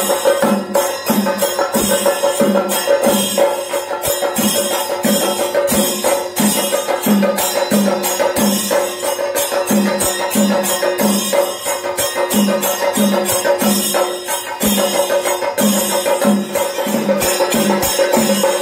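Chenda melam: chenda drums beaten with sticks in a dense, fast rhythm, with deep strokes about twice a second, accompanied by ringing elathalam hand cymbals and a steady held tone.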